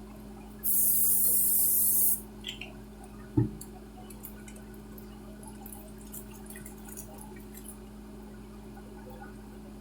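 Kitchen work at the stove: a loud hiss lasting about a second and a half, a single knock, then faint crackling from turkey patties frying in a pan, over a steady low hum.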